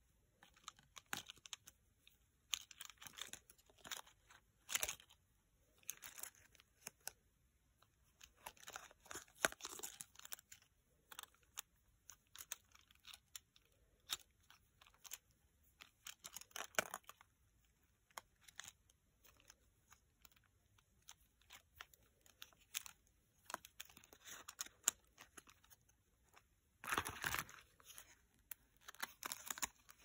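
A Loopeez fidget toy, glitter-filled beads on a blue elastic cord, being squeezed and worked in the hand: quiet scattered clicks and crinkly rustles, with a longer rustle near the end.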